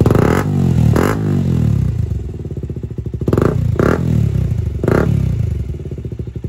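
KTM Duke 125's single-cylinder engine idling through an aftermarket Akrapovic-style slip-on silencer held onto the bend pipe by hand. It is blipped about five times in short, sharp revs as a sound check of the exhaust.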